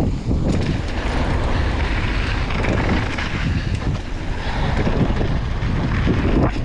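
Strong wind buffeting a GoPro action camera's microphone: a dense, steady rumbling noise.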